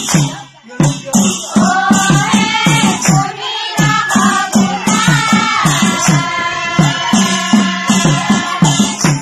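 A group of women singing nagara naam, an Assamese devotional chant, in unison to a steady drum beat with cymbals. The drumming drops out briefly about half a second in, then picks up again.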